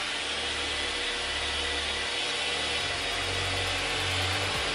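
Electric buffer running steadily at low speed, its pad working rubbing compound into car paint: the first compounding stage.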